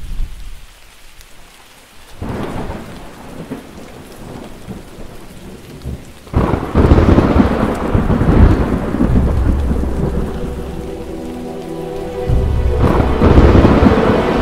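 Thunderstorm: rolling thunder over rain. A first rumble comes in about two seconds in, a much louder, longer clap breaks about six seconds in, and another swell follows near the end.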